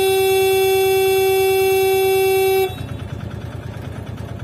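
Milk van's horn held in one long steady blast, sounded to scare off a wild elephant; it cuts off abruptly about two-thirds of the way in. After it, a vehicle engine idling with a low, even throb.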